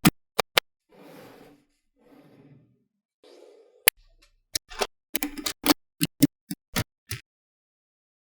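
Small magnetic balls clicking as they snap onto one another: three sharp clicks at the start, a few soft scraping sounds, a single click near four seconds in, then a quick run of about a dozen clicks.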